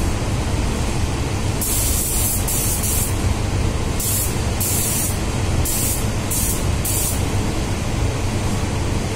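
Paint spray gun hissing as it sprays a car panel: one longer burst about two seconds in, then several short bursts about half a second apart. A steady low hum runs underneath.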